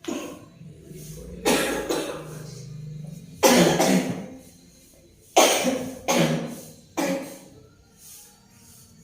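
A woman coughing in a fit of about six loud coughs, the last three in quick succession: a long-lasting cough that has not healed.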